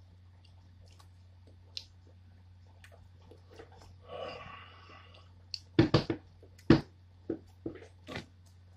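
Wet mouth sounds from a man holding a super-hot pepper chocolate in his mouth. A breathy hiss comes about four seconds in, then a run of sharp lip smacks and mouth clicks, the loudest a cluster around six seconds in.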